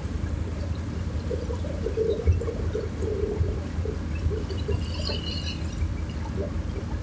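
River water lapping and splashing close by, small irregular splashes over a steady low rumble.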